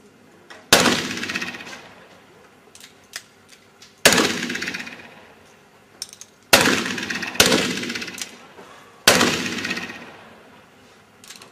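Black powder pistols firing five shots at uneven intervals, each a sharp bang with a long echoing tail that dies away over about a second and a half. A few faint clicks come between the shots.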